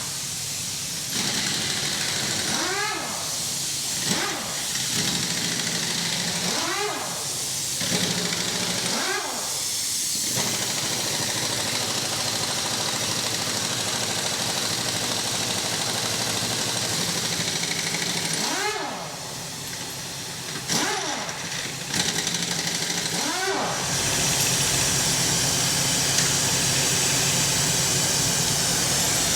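An engine running under a steady hiss, with repeated short rising revs, the first four in the first ten seconds and three more between about 19 and 23 seconds in, and a heavier rumble from about 24 seconds in.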